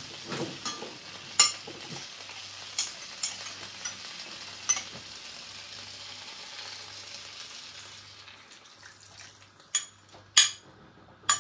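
Beef and vegetable stir-fry sizzling in a frying pan, with scattered light clicks. The sizzle fades away as the teriyaki sauce is poured in, and a few sharp clicks sound near the end.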